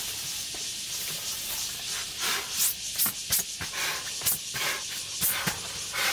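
Camping gear being handled during tent setup: fabric rustling and sharp clicks, several in a row from about two seconds in, over a steady hiss.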